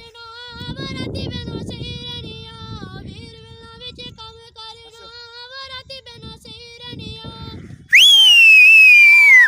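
A child singing a folk song, holding long drawn-out notes that step up and down in pitch. About eight seconds in, a sudden, much louder shrill high-pitched sound cuts in and slides slowly downward.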